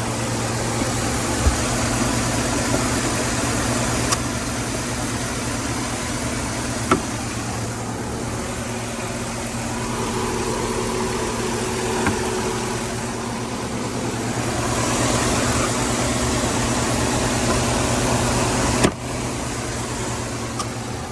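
2011 GMC Sierra's 5.3 V8 running steadily after a new camshaft and lifter were fitted, with a few faint clicks.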